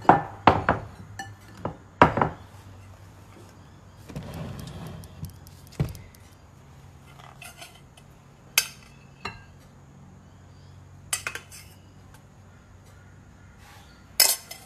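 Metal fork clinking against a stainless-steel saucepan as couscous is fluffed and served out: several sharp clinks in the first couple of seconds, a brief scrape about four seconds in, then a few scattered clinks.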